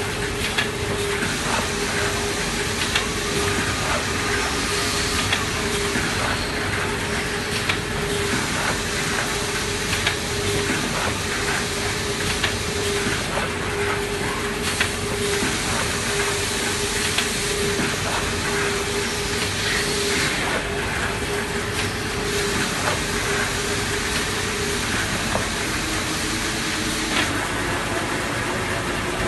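Automatic band saw cutting machine for tissue paper rolls running: a steady mechanical hiss with a constant hum tone and scattered clicks. The high hiss dips briefly about every seven seconds.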